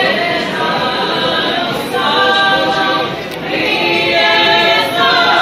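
Group of women singing a traditional Posavina folk song without accompaniment, in long held notes, with a short break between phrases about three seconds in.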